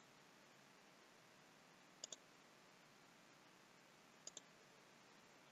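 Computer mouse clicking: two quick press-and-release double clicks about two seconds apart, over a faint steady hiss.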